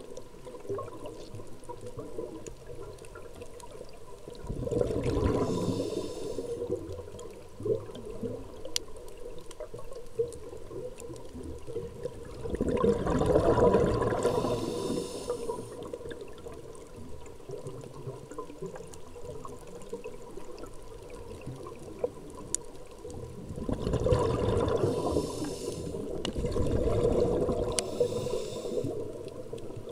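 Scuba diver breathing through a regulator underwater: the rushing, bubbling noise of exhaled air comes in about four loud bursts, with quieter stretches of underwater hiss between them.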